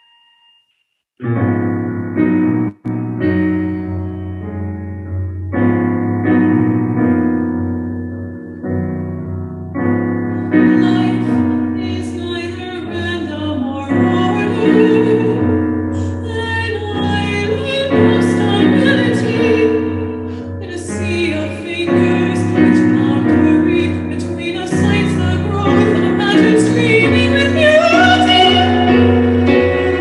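Live chamber music for soprano, cello and digital piano, starting about a second in with sustained piano chords and bowed cello. A female soprano voice sings over them.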